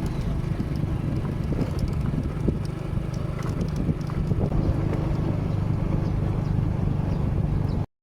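An engine running steadily at an even speed, with a little wind noise; the sound cuts off abruptly near the end.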